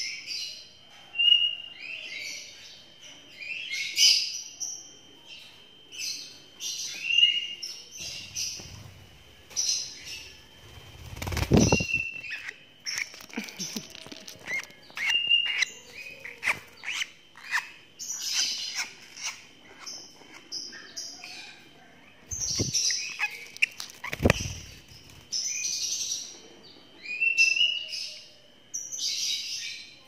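Young lovebirds chirping over and over in short, shrill calls, with a steady high tone underneath. A few dull thumps come about midway and again near the end.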